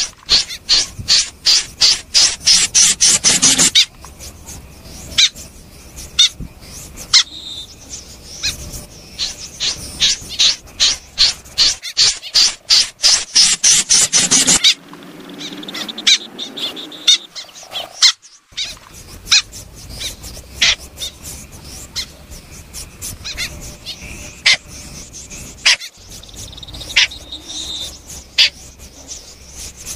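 Snipe calling: fast runs of sharp, high, clipped notes, about seven or eight a second, breaking off into scattered single notes and then starting again.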